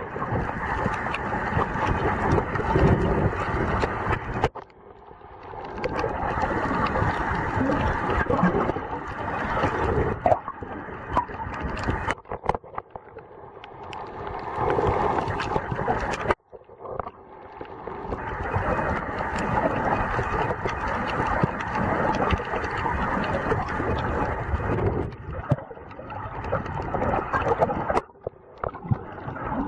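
Muffled, rushing water noise picked up by a waterproof camera in the sea, broken by several sudden cuts where one clip gives way to the next.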